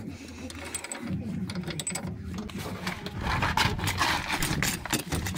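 Ratchet wrench clicking in quick runs as nuts on the UAZ Bukhanka's leaf spring mounting are turned, with metallic clicks throughout that grow denser and louder in the second half.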